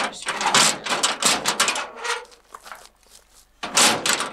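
Steel trash bin's lid and hand-worked latch clattering and clicking in quick bursts for about two seconds, then after a short lull one louder clatter near the end.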